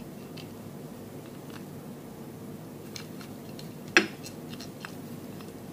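Light clicks and clinks of small metal ignition parts being handled and fitted by hand, with one sharper click about four seconds in, over a steady low hum.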